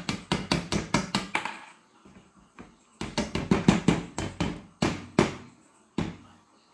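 Hammer blows in quick succession, about four a second, in two runs with a short pause between, then one last single blow near the end.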